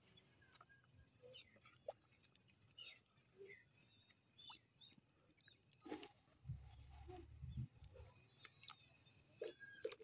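Near silence: a faint, steady high trill of night insects such as crickets, with a few soft clicks and a brief low rumble about six and a half seconds in.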